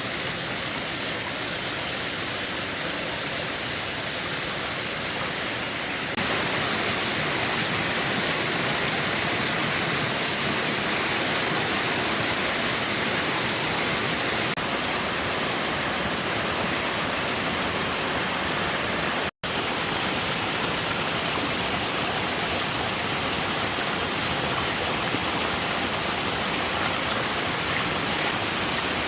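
Steady rushing of water, a stream or heavy rain, with no distinct events. The level jumps abruptly about six seconds in and cuts out for an instant a little past the middle.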